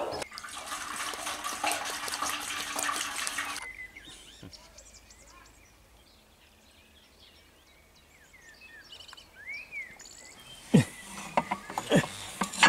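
Water running steadily for nearly four seconds, then cut off suddenly. Faint bird chirps follow in the quiet, and a few sharp knocks come near the end.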